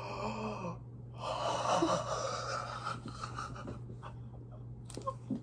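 A young man's excited, wordless vocal reaction: a held 'ooh' in the first second, then a long breathy gasp of about two seconds, then quieter scattered breaths.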